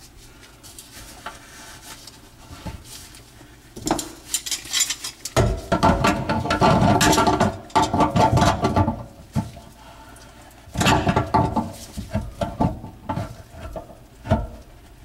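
A metal wrench clinking and scraping on the nut of a stainless kitchen sink strainer basket drain as the joint is tightened. The clinks come in irregular clusters, starting about four seconds in, busiest in the middle and with more later.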